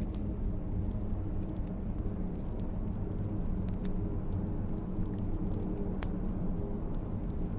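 Wood fire crackling, with scattered sharp pops over a steady low rumble; one pop about six seconds in stands out.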